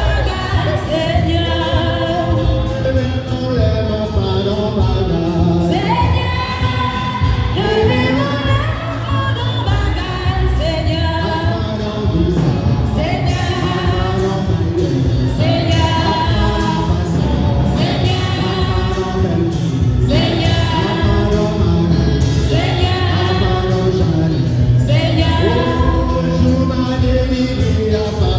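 Hymn sung by voices over instrumental accompaniment with a steady bass beat, in a large reverberant hall.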